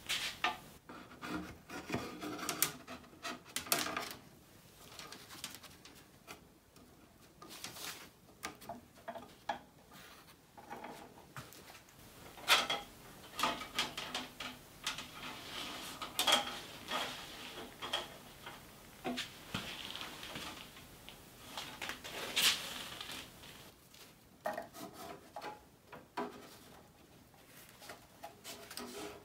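Steel band saw blade being handled and fitted over the cast-iron wheels of an antique hand-powered band saw. Irregular clinks, taps and rubbing of the blade and gloved hands on metal and wood, with a few sharper metallic knocks about 12, 16 and 22 seconds in.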